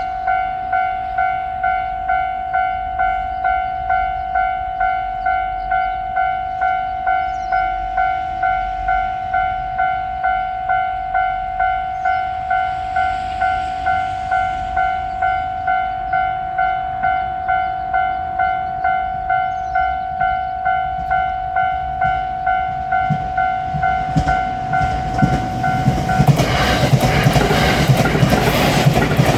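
Japanese level-crossing alarm ringing, a bright electronic ding repeating a little under twice a second. About 24 seconds in, a train reaches the crossing with a rising rumble and wheel clatter, and the ding stops soon after.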